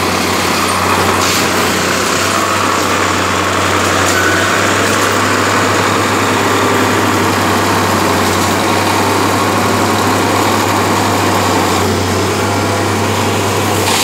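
Engine of a Unimat track tamping machine running steadily, with a constant low hum.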